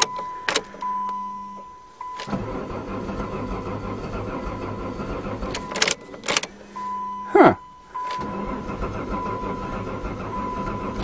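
A minivan's 3-litre engine cranking on the starter in two long stretches without catching, with a warning chime beeping throughout. The owner suspects the fuel is so low that the pump is sucking air.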